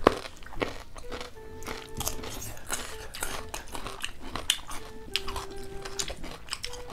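Crisp bites and chewing of raw cucumber slices, a string of crunches close to the microphone, over soft background music with held notes.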